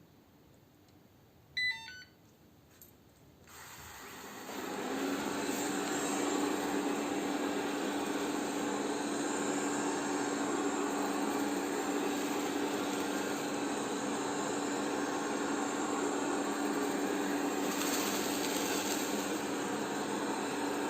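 Polaris PVCR 3200 IQ Home Aqua robot vacuum cleaner giving a short electronic start-up chime, then its suction fan and brushes spinning up over about a second and a half. It then runs steadily with a constant hum.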